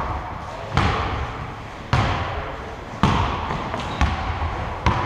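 Basketball dribbled on a gym floor: five bounces about a second apart, each echoing in the hall.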